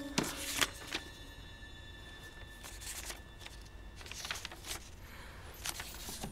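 Paper rustling in several short bursts: the pages of a book being handled and leafed through.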